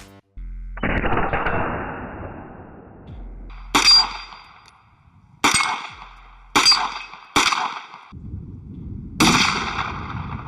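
A sudden blast that fades over about two seconds, followed by five sharp metallic clangs spaced a second or two apart, each ringing briefly.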